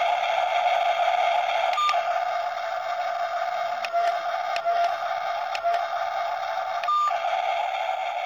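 Steady whine of small electric motors, with a few light clicks and a short higher-pitched squeal about two seconds in and again near the end.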